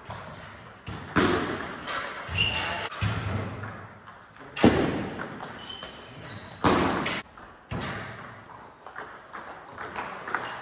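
Table tennis rally: the ball knocking off bats and table in a string of sharp clicks, with a few brief high squeaks between them.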